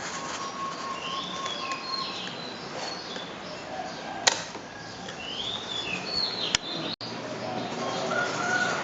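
Ceiling fan running with a steady whoosh of moving air, while small birds chirp in short rising-and-falling calls in two spells. Two sharp clicks sound about four and six and a half seconds in.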